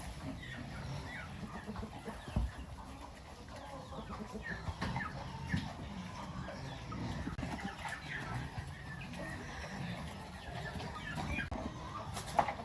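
Chickens clucking, with many short calls scattered throughout over a low background rumble. Sharp knocks sound about two seconds in and near the end.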